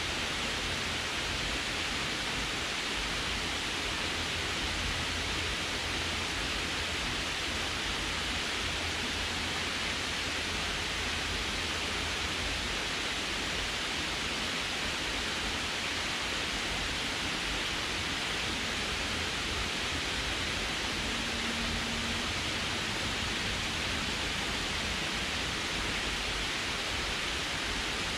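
Water pouring over a low concrete dam spillway and splashing into the pool at its foot: a steady rushing hiss that does not change.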